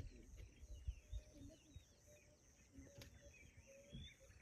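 Faint savanna ambience: birds chirping and a steady insect hiss, with a soft note repeating a few times a second and occasional faint low thuds.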